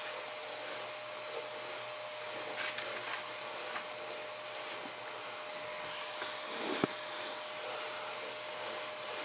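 Dell T5500 workstation's cooling fans whirring steadily, with a steady whine, and a single sharp click about seven seconds in.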